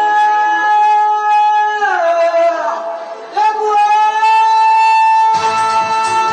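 Live band music: a long, steady, horn-like melody note, held, sliding down about two seconds in and rising again over a second later, then drums and the full band come in near the end.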